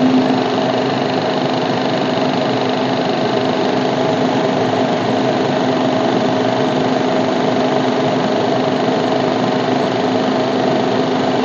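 Maruti Suzuki Baleno RS's 1.0-litre Boosterjet turbo petrol engine running steadily at a constant speed, with an abnormal steady noise over it. The noise comes from a vacuum hose that has slipped off its connection.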